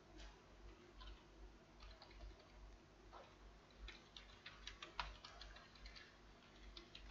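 Faint clicking of computer keyboard keys as numbers are typed in, with scattered single keystrokes and quicker runs of keys about four seconds in and again near the end.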